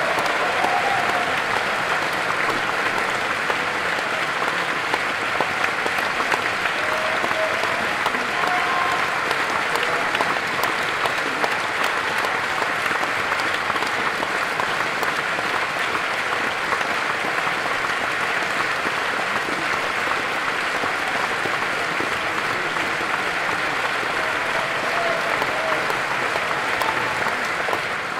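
Large concert audience applauding, dense steady clapping from many hands.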